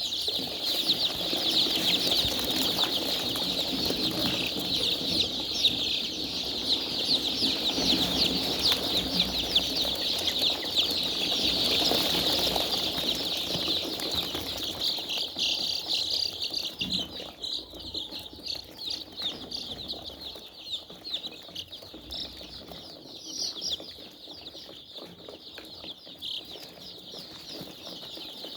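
A large flock of chickens in a poultry house: a dense, continuous chorus of many overlapping high-pitched peeps, with lower-pitched calls and rustling that die down about halfway through.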